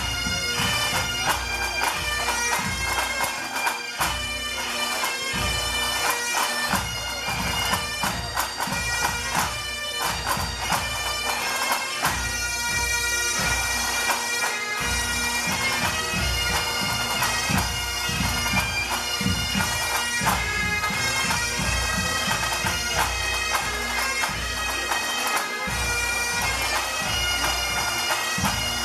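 A pipe band playing: Great Highland bagpipes carry a tune over their steady drones, with the band's snare, tenor and bass drums beating along.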